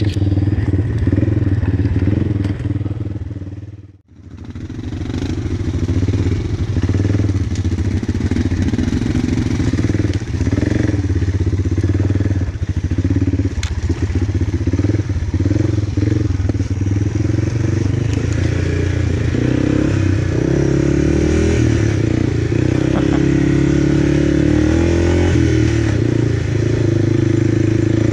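Quad (ATV) engine running while riding off-road, its note rising and falling with the throttle, with some clatter. The sound cuts out abruptly about four seconds in and fades back in.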